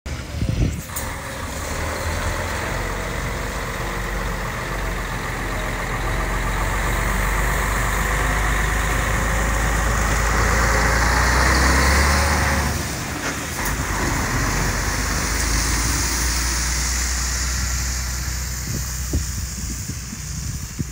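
Scania R113 tractor unit's 11-litre straight-six diesel pulling a trailer past and away. The engine note builds steadily, drops suddenly about two-thirds of the way through, picks up again, then fades as the truck draws off.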